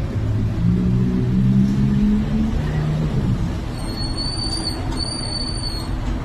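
A motor vehicle's engine running close by, its pitch stepping up and down over the first few seconds over a steady low rumble, then two short high-pitched squeals, one right after the other.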